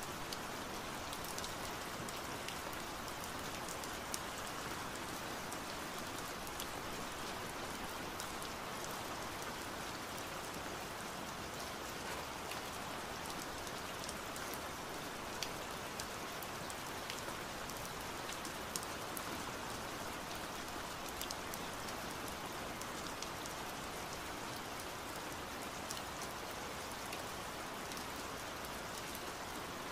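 Steady rain falling on a surface: an even hiss with scattered small drop ticks throughout.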